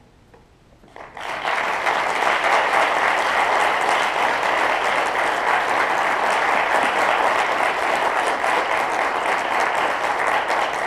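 An audience breaks into applause about a second in, after a brief hush, and keeps clapping steadily.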